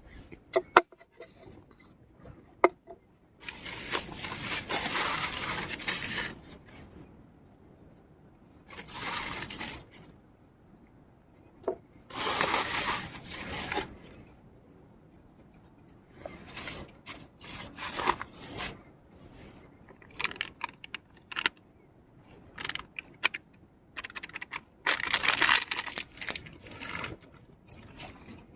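Handling noises: scraping and rustling in bursts of a second or two, with sharp clicks and clinks between them. The loudest clicks come in the first few seconds.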